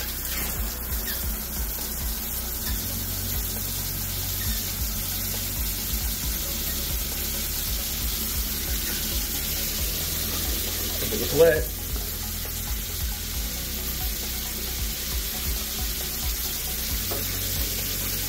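Shower head spraying water steadily into a fibreglass shower stall, switched on just at the start. A brief pitched sound, the loudest moment, stands out about eleven seconds in.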